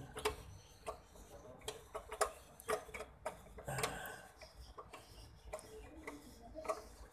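Irregular metallic clicks and ticks as an M5 tap, held in a drill press chuck and turned by hand, is worked in the threaded hole of an aluminium reel frame and raised back out.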